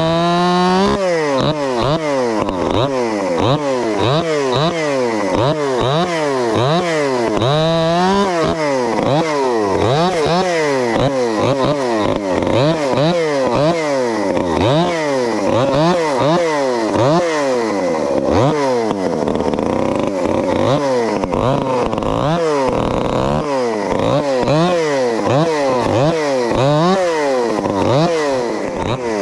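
Modified Craftsman gas chainsaw with a homemade straight-through muffler, running hard while cutting wood. Its engine pitch rises and falls in a regular warble about two to three times a second.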